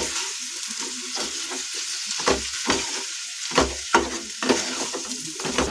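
Grated boiled potatoes sizzling in hot oil in a frying pan while a wooden spatula stirs them, scraping and knocking against the pan at irregular intervals.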